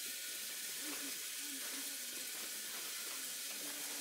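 Steady sizzling hiss of food cooking, with faint voices in the background.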